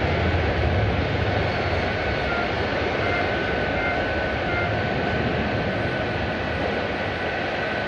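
Airliner engines running, a steady loud rush with a faint high whine, slowly getting a little quieter.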